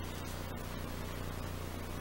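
Steady hiss with a low electrical hum: the recording's background noise in a quiet room.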